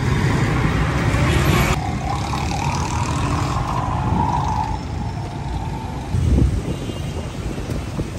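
Street noise with a steady low traffic rumble, a wavering mid-pitched tone for a few seconds after the start, and a dull thump about six seconds in.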